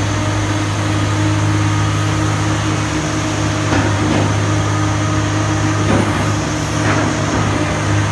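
Komatsu PC300LC excavator's diesel engine running at a steady pitch, with a few faint knocks about four, six and seven seconds in.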